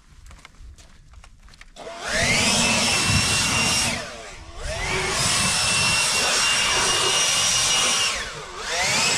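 DeWalt cordless leaf blower spinning up with a rising whine about two seconds in and running at full speed. It eases off briefly about halfway through, spins back up, then dips and rises again near the end.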